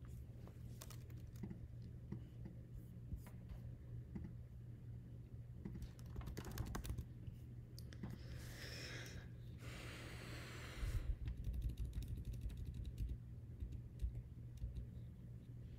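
Typing and clicking on a computer keyboard, in scattered clicks with a quick run about six seconds in. Near the middle a breathy hiss lasts about two seconds, followed by a few low thuds.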